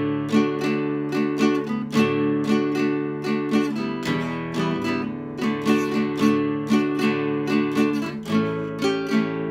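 Nylon-string classical guitar strummed with the fingers in a steady, rhythmic chord accompaniment, several strokes a second, with the chord changing every couple of seconds.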